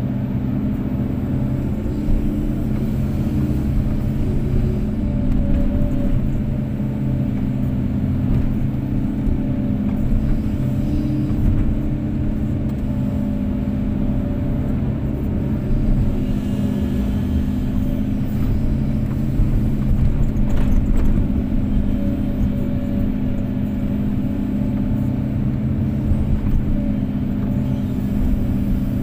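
Kobelco SK250-8 excavator's diesel engine running steadily at an even pitch.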